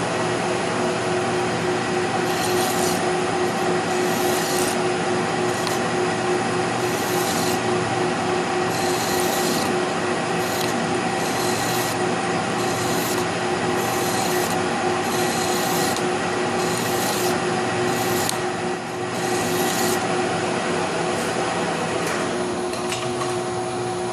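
Metal lathe running with a steady hum while a tool scrapes against the spinning truck lug nut in repeated strokes about once a second. The scraping stops near the end while the lathe keeps running.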